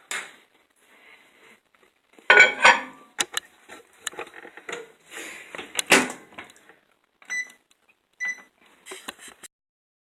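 Kitchen handling noises of a bowl going into a microwave oven: clatters and knocks, loudest about two and six seconds in, then two short keypad beeps as the microwave is set.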